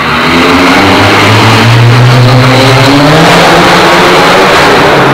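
A car engine under hard acceleration inside a concrete road tunnel, loud throughout, its pitch rising steadily as it pulls through the gears.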